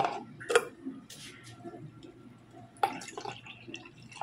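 A plastic juice jug and plastic cup set down on a countertop: two sharp knocks about half a second apart, then small handling clicks and drips, and another knock a little before the end. Right at the end, sparkling water from a can begins pouring and fizzing into the cup.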